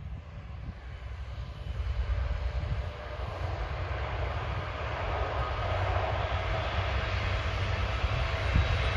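Diesel express train approaching: the engine and running noise grow steadily louder as it draws near, with a low rumble underneath.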